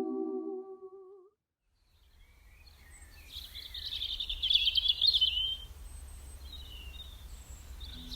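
A held, hummed chord fades out about a second in, followed by a moment of silence. Outdoor ambience then rises with a low steady rumble and a songbird singing a rapid chirping phrase, loudest about four to five seconds in.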